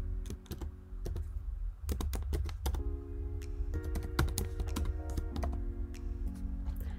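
Typing on a computer keyboard: a run of quick, irregular keystrokes. Soft background music with held chords plays underneath.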